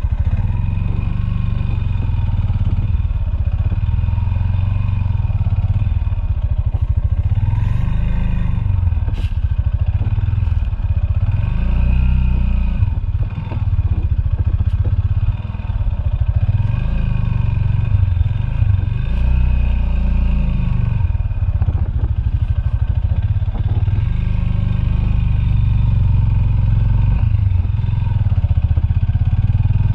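Motorcycle engine running under way, its revs rising and falling every few seconds as the throttle is worked over a rough dirt road.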